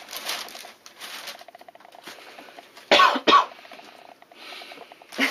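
Bag rustling and crinkling in short bouts as a kitten moves about inside it, with two short, loud cough-like sounds about three seconds in.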